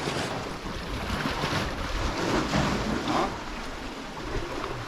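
Wind buffeting the microphone over sea waves washing against the shore, swelling a little louder midway.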